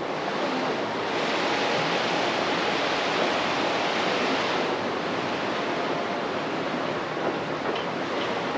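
Rushing water of river rapids, a steady rush that is brighter and slightly louder for a few seconds about a second in.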